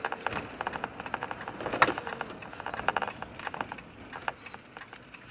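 Irregular rapid clicking and light rattling inside a pickup truck's cab, thinning out after about three seconds, with one sharper click about two seconds in.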